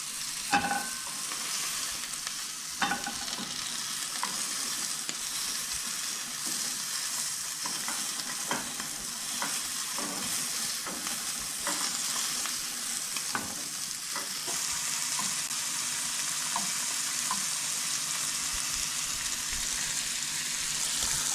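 Thin strips of pigeon breast sizzling in a very hot frying pan, a steady hiss, with a dozen or so short clicks and knocks of a utensil against the pan as the meat is worked. The sizzle grows a little brighter about two-thirds of the way in.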